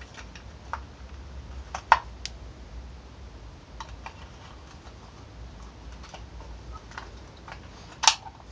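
Small clicks and taps of the start relay and its plastic cover being handled and pressed back onto the side of a refrigeration compressor, with two sharper knocks, about two seconds in and near the end.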